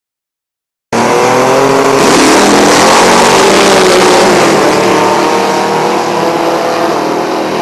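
Two Buick drag-race cars launching side by side at full throttle and accelerating hard down the strip. The engine sound cuts in abruptly about a second in, is loudest over the next few seconds, then eases as the cars pull away.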